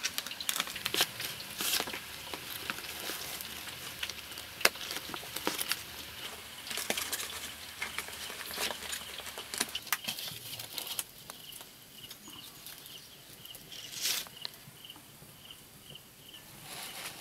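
Large fresh leaves being handled and folded by hand: crisp rustling and crinkling with many small sharp clicks. After about ten seconds it turns quieter, and a faint high chirp repeats about twice a second.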